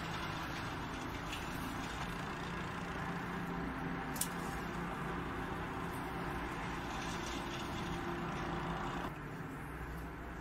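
Steady mechanical hum and hiss with a faint low drone, dropping in level about nine seconds in. One sharp snip of scissors cutting a spider plant runner about four seconds in.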